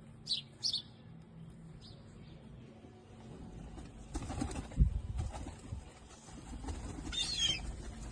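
Birds chirping: two short high chirps falling in pitch near the start and a busier cluster of chirps near the end, with a flurry of rustling and a low thump around halfway.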